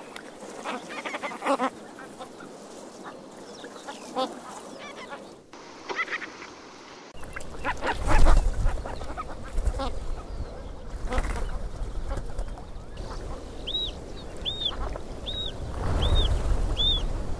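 Ruff (Calidris pugnax) calling: short, nasal, honk-like calls repeated through the first half. Near the end come six short arched high notes, a little under a second apart, over a low rumble.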